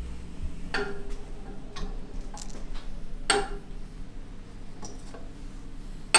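Engine poppet valves being set down one by one on a stainless steel bench top: sharp metallic clinks about a second apart, some with a short ring, the last the loudest.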